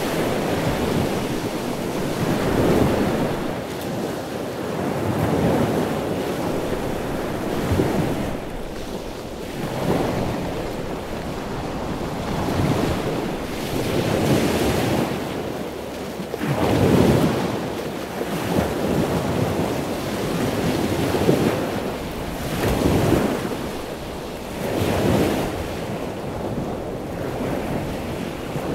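Rough storm surf from a nor'easter breaking and washing over jetty rocks, swelling in surges every few seconds, with wind buffeting the microphone.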